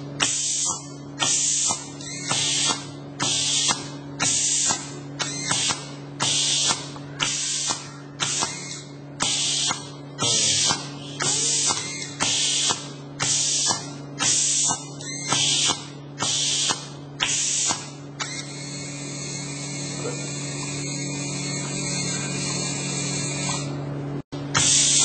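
Compressed air hissing in short, regular bursts, about one and a half a second, over a steady machine hum: pneumatic valves exhausting as an automated stamping die cycles. About two thirds of the way through the bursts give way to one continuous hiss that slowly grows louder, then the bursts return near the end.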